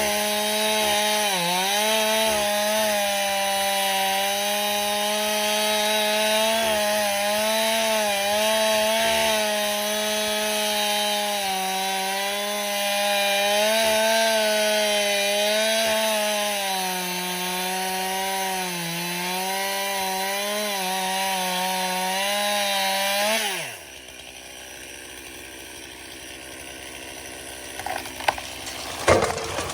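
Stihl two-stroke chainsaw running at full throttle through wood, its pitch dipping and recovering as the chain bogs under load. About three-quarters of the way through the engine cuts off suddenly, and a few sharp knocks follow near the end.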